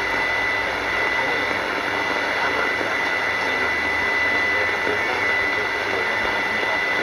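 Shortwave radio receiving a jammed clandestine broadcast: a steady hiss of static with a constant whistling jamming tone over it. A faint voice is buried under the noise.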